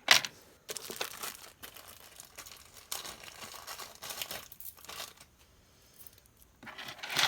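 Plastic bag of bead strands crinkling and rustling as it is handled, in several bursts with short pauses, loudest at the start and near the end.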